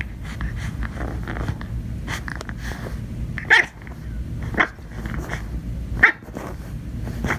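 A puppy giving short, sharp barks, three loud ones about a second apart in the second half, with fainter yips before them.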